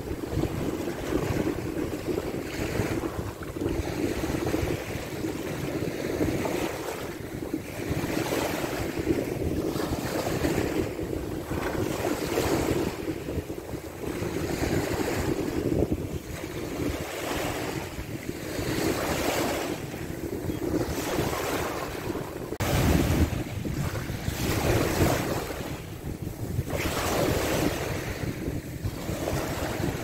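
Small waves lapping and washing up on a sandy shore, swelling and easing every few seconds. Wind rumbles on the microphone throughout, heavier from about three-quarters of the way in.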